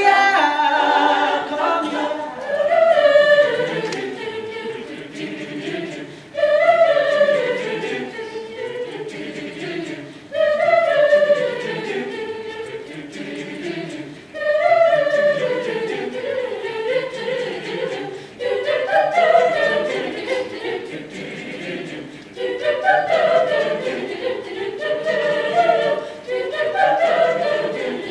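An a cappella vocal group singing a wordless passage in close harmony, its phrase repeating about every four seconds with a strong accent at the start of each.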